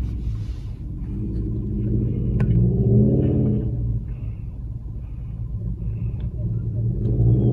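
Low, steady rumble of a car engine running.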